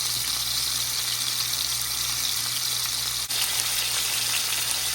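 A slab of giant trevally (ulua) searing in a hot oiled pan: a steady, loud sizzle with one brief dip a little past three seconds in.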